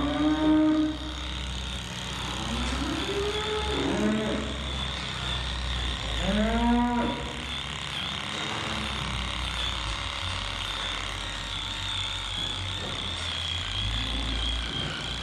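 Cattle mooing several times in the first half, over the steady high whine of a handheld electric tool running against a cow's tail.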